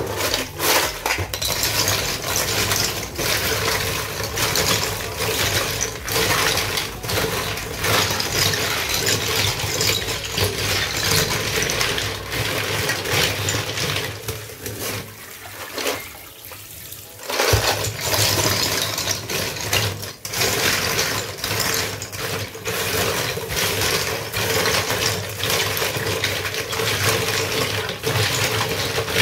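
Small seashells (liswit) being washed in water: a steady splashing with many small clicks as the shells knock against each other, briefly quieter about fifteen seconds in.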